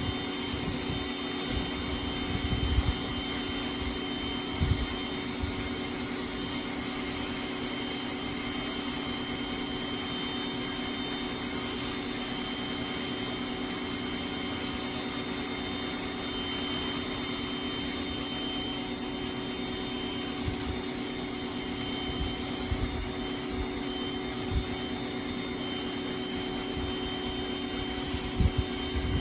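Westinghouse ePX3500 electric pressure washer running steadily, its motor and pump giving a steady high whine over a rushing hiss, with a few low thumps in the first few seconds and near the end.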